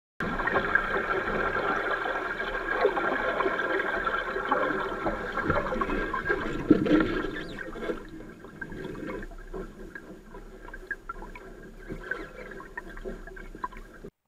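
Water churning noisily behind a sailing dinghy's transom, with scattered splashes: the sign of drag from the transom being pushed into the water with the weight too far back. About seven seconds in the sound drops to a much quieter wash, as the transom lifts and the water flows away cleanly.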